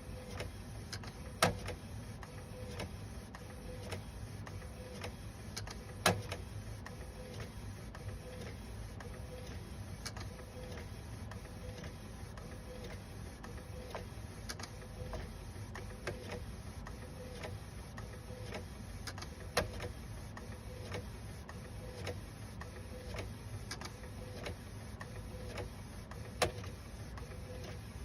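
FL200h half-size compact food printer running, its print mechanism going back and forth with a regular click about every three-quarters of a second and a few sharper knocks. This is the abnormal noise that comes with jagged, uneven printed lines.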